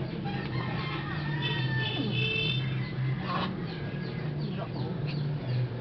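Birds chirping: many short falling chirps, with a longer high call about a second and a half in, over a steady low hum.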